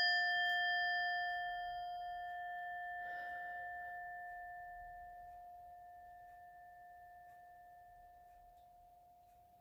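A struck bell-like chime ringing one clear tone with fainter higher overtones, fading slowly until it is almost gone near the end.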